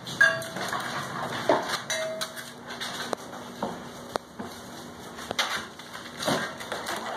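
Puppies whining and yipping in short cries, several falling in pitch, with scattered sharp clicks and knocks in the pen.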